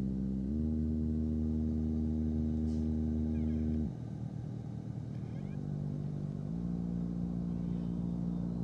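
Low, steady droning tone with several overtones. It steps up in pitch about half a second in, breaks off near four seconds, and comes back at a lower pitch about six and a half seconds in.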